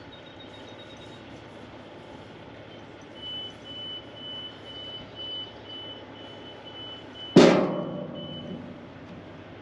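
A truck's reversing alarm beeping about twice a second over a steady background noise. About seven seconds in, a sudden loud burst, the loudest sound here, fades over about a second.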